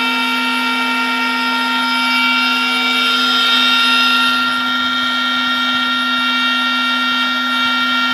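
CNC router spindle running at a steady pitch with a constant whine, its bit cutting along the edge of a hardwood piece. The cutting noise swells between about two and four and a half seconds in, then eases back.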